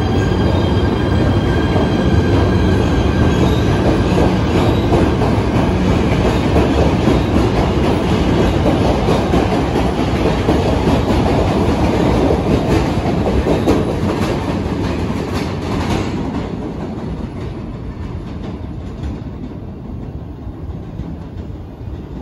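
PATH PA5 subway train pulling out of the station and running past, with a steady high whine in the first few seconds. Its noise fades over the last several seconds as it leaves into the tunnel.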